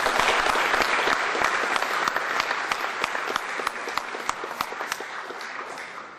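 Audience applauding: many hands clapping in a dense patter that slowly dies down near the end.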